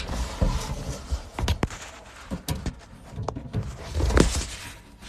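Scattered knocks and clicks over low rumbling, the sound of handling and light knocking around, with a louder patch of knocks about four seconds in.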